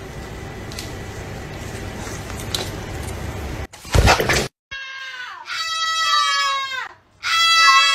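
A steady noisy rumble, cut off by a short loud burst about four seconds in, then two long loud calls from a caged animal, each falling in pitch at its end.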